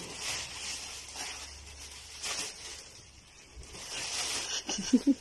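A broom sweeping scattered grain and feathers across a floor, in repeated hissing, rustling strokes about once a second. A short burst of voice-like sound comes near the end.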